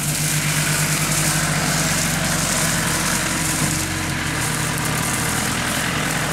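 Tractor engine running at a steady speed, with a constant low hum and a hiss over it.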